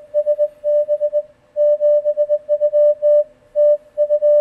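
Morse code (CW) signal received on a Yaesu FTDX10 HF transceiver: a steady tone near 600 Hz keyed on and off in dots and dashes, at the radio's 600 Hz CW pitch. The background between the elements is quiet because the laptop power supply that caused the ringing noise has been unplugged.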